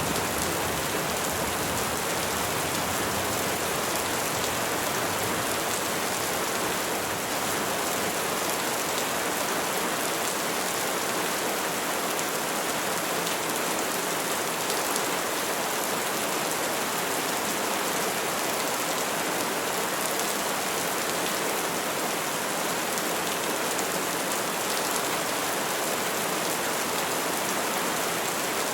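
Steady rain falling on trees, a dense even hiss of drops with no thunder.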